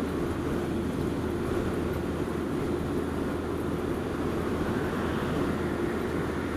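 Honda Z125 Monkey's single-cylinder engine running at a steady speed while the bike is ridden, a steady low drone with road noise.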